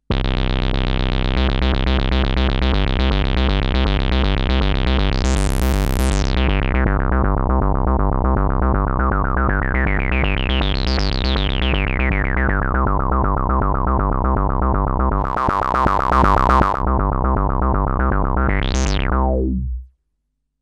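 Modal Electronics Cobalt 8X virtual-analogue synthesizer playing a factory preset: a dense held chord over a rhythmically pulsing bass. Its filter is swept open and shut by hand several times, brightest about six and eleven seconds in, with a quick last sweep just before the sound stops abruptly near the end.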